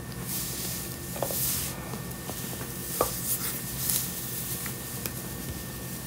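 Handling noises: rustles and a few sharp metallic clicks, the sharpest about three seconds in, as parts and screws are handled while the dishwasher's controller assembly is fitted back into place.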